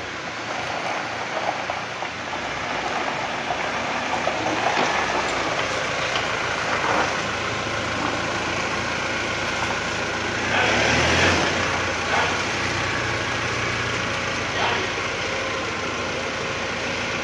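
A motor vehicle's engine running steadily amid street and workshop noise, with a louder burst of noise about ten seconds in.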